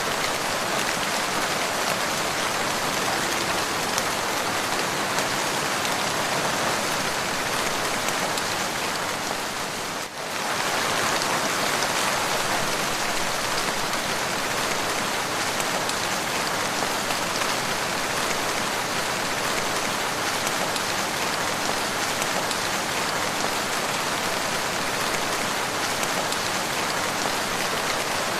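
Steady, continuous rain falling, an even dense patter with no let-up. The sound dips briefly about ten seconds in, then carries on as before.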